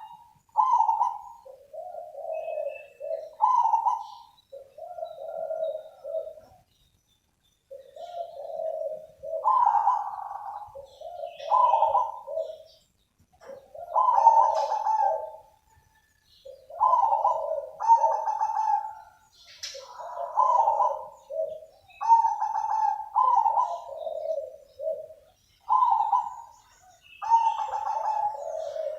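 Zebra dove (perkutut) singing its cooing song: repeated phrases of short, mellow coos, each phrase lasting a second or two with brief gaps, and one longer pause about six seconds in.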